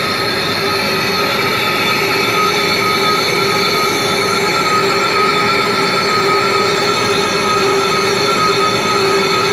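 Machine tool turning a compressor cylinder liner, giving a steady, unbroken metal-cutting whine with several fixed tones over a hiss.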